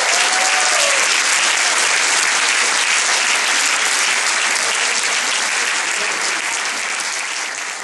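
Live audience applauding at the end of a song, a dense steady clapping that slowly fades toward the end.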